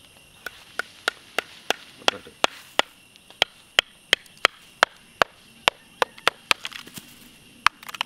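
Claw hammer tapping a terracotta clay pot in light, quick strokes, about three a second, with a short pause near the end. The pot is being chipped open to free the hardened candy set inside it.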